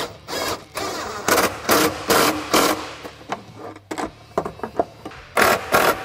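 Cordless impact tool driving a socket in short bursts, running the M6 bolts and nylock nuts of a heater bracket down tight: a quick run of bursts, some smaller clicks, then two more bursts near the end.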